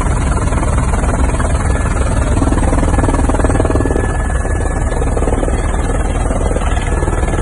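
Helicopter in flight heard from inside its cabin: steady, loud rotor and engine noise.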